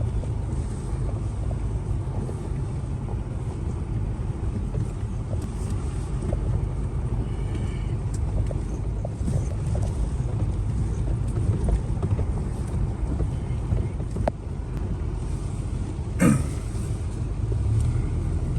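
Steady low rumble of a motor vehicle on the move, with a brief sound falling in pitch about sixteen seconds in.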